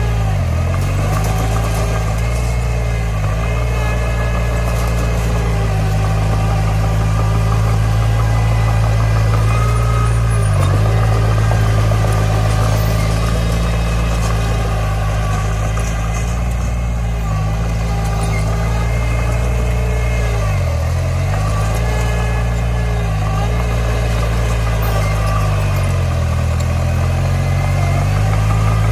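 Komatsu D20 bulldozer's diesel engine running steadily. Its pitch sags briefly and recovers several times as it takes load.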